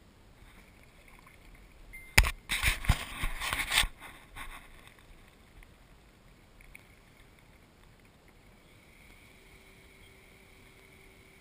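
Kayak paddle stroke splashing in the water right beside the kayak-mounted camera: a short burst of splashing with sharp knocks about two seconds in, lasting under two seconds.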